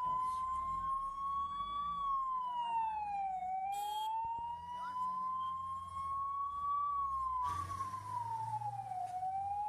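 Ambulance siren in a slow wail, its pitch climbing for a few seconds and then dropping, over and over, with vehicle engine and road rumble beneath.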